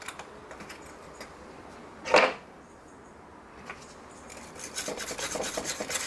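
Hand-handling sounds on a workbench as an aluminum piece is turned over and moved against ceramic soldering boards. There is one short, loud scrape about two seconds in, then a run of quick scratching and rubbing from just past four seconds.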